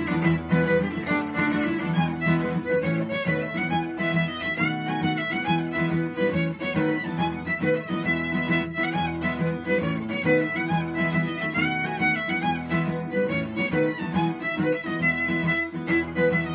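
Celtic fiddle tune played on fiddle in a quick run of notes, with acoustic guitar strumming chords underneath.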